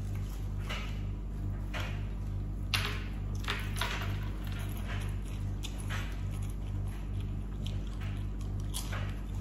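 Scattered clinks and scrapes of cutlery on plates during a meal, over a steady low hum.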